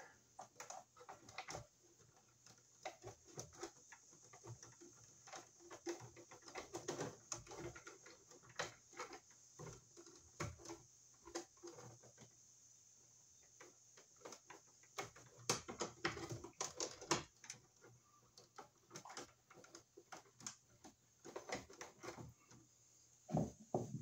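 Faint, irregular clicks, taps and rustles of stiff 12/2 electrical cable and wire nuts being handled and pushed into a plastic electrical box, in uneven clusters.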